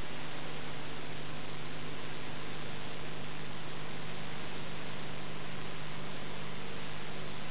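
Steady hiss with a constant low electrical hum and nothing else: the background noise of an old transfer of silent Super 8 film.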